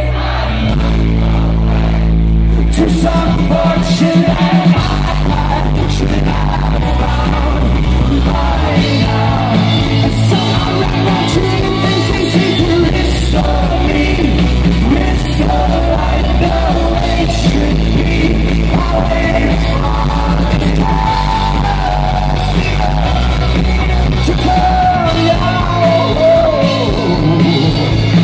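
Live rock band playing loudly with a lead singer, recorded from the audience.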